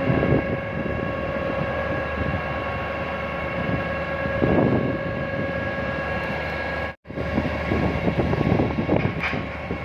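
Steady industrial machinery hum with a constant whine held on several pitches, with gusts of wind on the microphone. The sound cuts out for an instant about seven seconds in.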